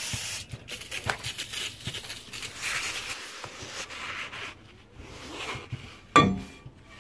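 A brief hiss of brake parts cleaner at the start, then a rag rubbing and wiping the inside of a new steel brake rotor to clean off its anti-rust oil. Near the end there is a single sharp knock as the rotor is handled.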